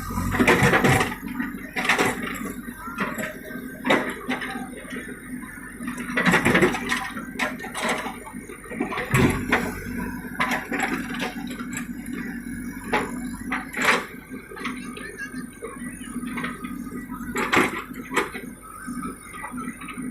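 Backhoe loader working: the engine hums steadily under irregular clanks and scrapes of the bucket against earth and stone.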